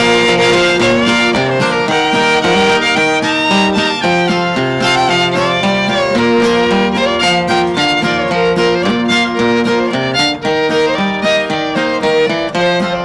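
Bluegrass fiddle playing an instrumental break, its melody sliding between notes, over acoustic guitar accompaniment.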